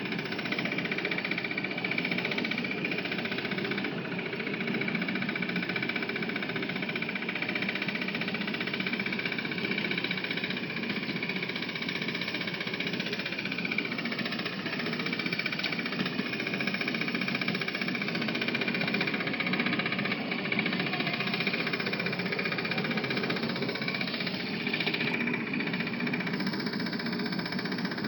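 Ride-on miniature train running: a steady mechanical rattle with an engine-like drone and a faint steady whine on top.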